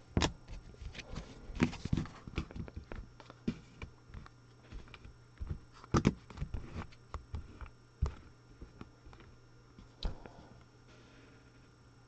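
Trading cards being handled: cards sliding and tapping against one another and down on a tabletop, a string of soft clicks and taps that thins out over the last few seconds, over a faint steady low hum.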